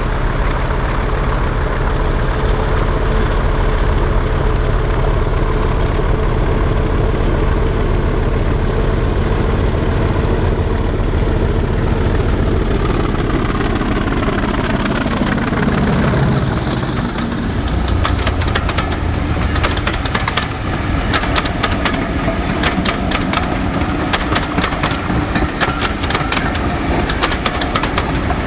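Class 40 diesel locomotive with English Electric 16-cylinder engine running under power as it approaches, its pitch dropping as it passes about fifteen seconds in. Then the train's wheels clatter rapidly over the rail joints, with a second diesel locomotive, a Class 52 Western, running as it goes by.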